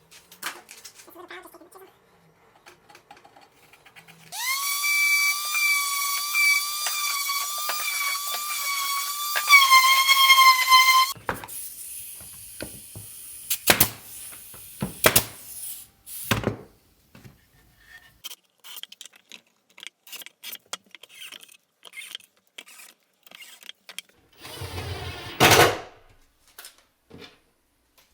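Power drill running steadily for about seven seconds, its whine dipping slightly in pitch near the end as it bores a dowel hole through a plywood drawer side, then stopping. Scattered knocks and clicks follow, with a short louder burst near the end.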